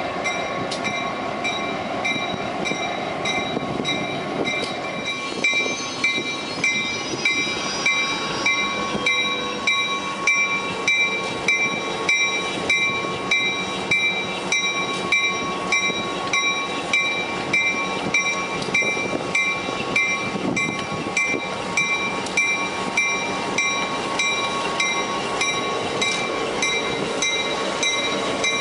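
A heritage train rumbles along the track, with a ringing struck regularly about twice a second on top.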